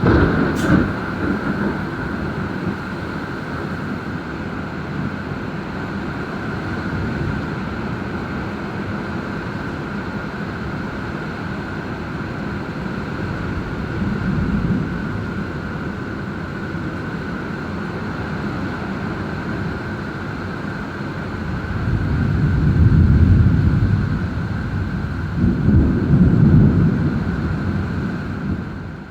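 Strong storm wind blowing hard against the microphone, swelling in gusts, loudest about two-thirds of the way through and again near the end.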